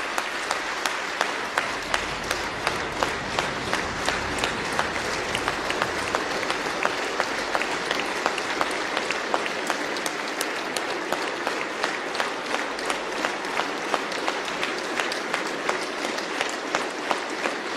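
A large audience in a big hall applauding steadily, with a dense, continuous patter of many hands clapping.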